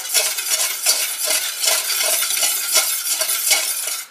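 Wire whisk beating egg yolk, sugar and milk in a stainless steel saucepan, the wires scraping and clicking against the pot about four times a second.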